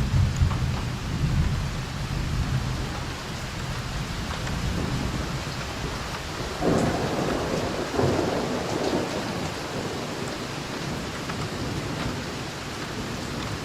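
Steady rain with thunder rumbling low in the first few seconds, then two sudden louder rushes of noise a little past halfway.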